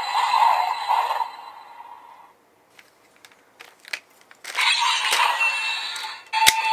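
DX ValenBuster toy transformation gun playing its electronic jingle and synthetic voice sound effects through its small built-in speaker. The audio fades out about two seconds in, with a few plastic clicks as the toy is handled. About two seconds later it starts again, and near the end a sharp click is followed by steady electronic tones.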